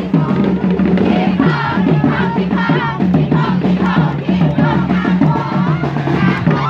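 Dance music with a steady, pulsing beat and a singing voice, played loud for a crowd dancing together.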